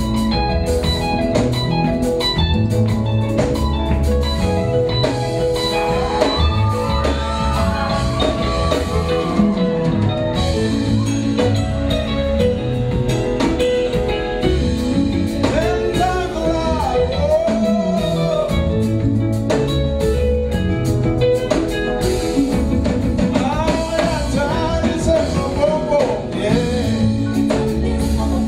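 Live band music with a drum kit, electric bass and electric guitar keeping a steady beat, and a voice singing over it at times.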